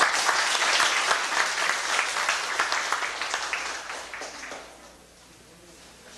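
Applause, many hands clapping, that dies away about four to five seconds in.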